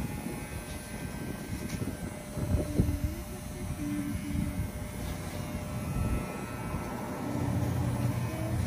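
Corded electric dog clippers buzzing as they cut through a dog's shaggy coat. The low hum weakens and wavers in the middle as the blades work into the fur, then comes back strongly near the end.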